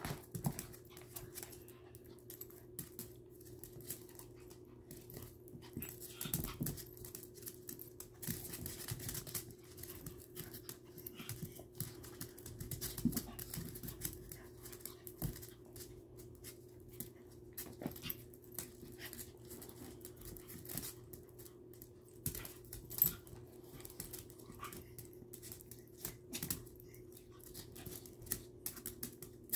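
Two small dogs play-wrestling on a laminate floor: claws clicking and scrabbling, bodies scuffling, and panting, in short irregular bursts.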